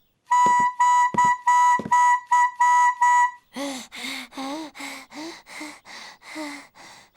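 A quick run of about eight short notes on one high pitch, with three low thumps among them. Then a cartoon character pants rhythmically, about two or three breaths a second, tired out from playing music.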